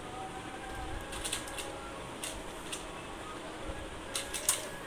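Small electric motor of a toy remote-control car whirring faintly as its wheels spin freely in the air, dying away after about a second and a half. Then light plastic clicks and taps from the car being handled, loudest in a quick cluster near the end.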